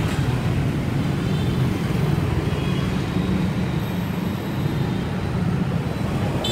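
Steady city street traffic, mostly motorbikes, heard as a continuous low rumble.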